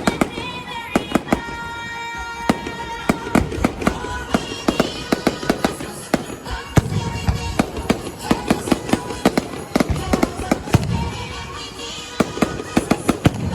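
Fireworks going off in quick succession, many sharp bangs and crackles with heavier booms around the middle, over music playing throughout.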